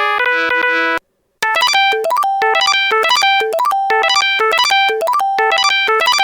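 IM-3000 mobile phone message-arrival alert tones: an electronic melody ends about a second in, and after a brief gap a different short chime phrase starts and repeats over and over.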